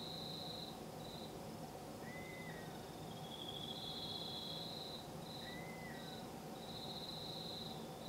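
Night insects trilling in repeated phrases, high-pitched and starting and stopping every second or so, over a steady low background hum. A short arched call sounds twice, about two and six seconds in.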